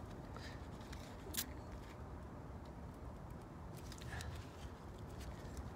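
Faint handling noise as gloved hands work trailer brake wires and a crimp connector: one sharp click about one and a half seconds in and a few light ticks over a steady low rumble.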